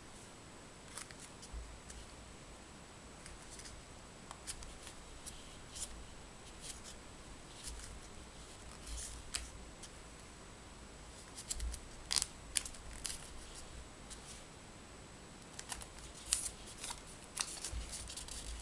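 Printed origami paper crinkling and creasing under the fingers as a small paper owl is folded and pressed flat: scattered soft crackles and taps, busier in the middle and again near the end.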